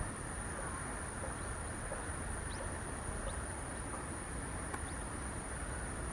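River water flowing steadily, with a few faint, short, rising chirps from a small bird in the first half and a thin, steady high-pitched tone throughout.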